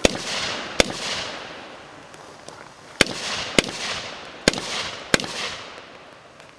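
Heckler & Koch rifle fired six times in three quick pairs, each shot a sharp crack followed by a long echo rolling back off the range berms.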